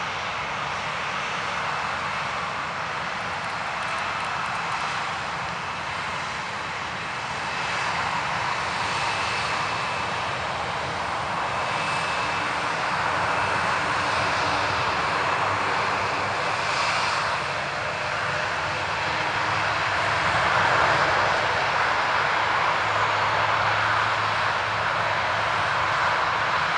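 Lockheed Martin C-130J-30 Hercules's four Rolls-Royce AE 2100 turboprops running as it taxis, a steady engine drone with a faint high turbine whine, slowly growing louder.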